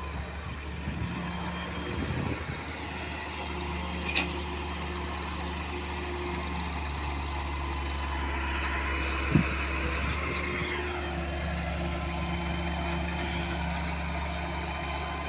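Excavator's diesel engine running steadily, with a single sharp clank about nine seconds in.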